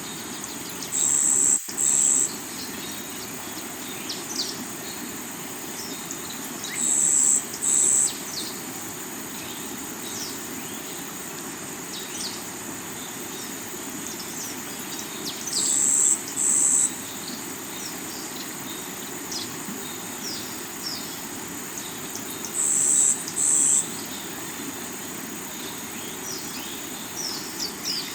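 Steady rushing of a rocky river, with an insect giving loud, high paired buzzing chirps about every seven to eight seconds and scattered short bird chirps over it.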